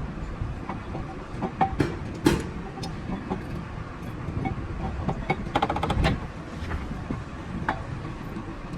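Metal tools and parts clinking and knocking during engine rebuild work, with a quick run of rapid clicks about six seconds in, over a steady low hum.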